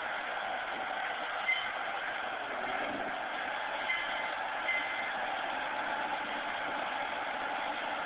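Backhoe's engine running steadily, an even mechanical drone, with three short high beeps in the middle.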